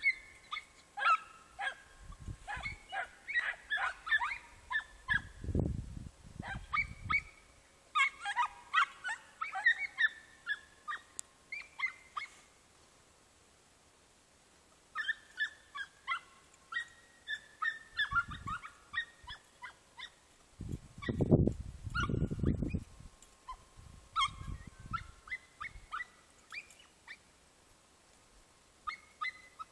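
A pack of hunting dogs, podenco hounds, giving tongue: rapid runs of high-pitched yelps and yips, as when hounds are working a scent. The runs pause for a couple of seconds midway. Low rumbles break in several times, loudest about two-thirds of the way through.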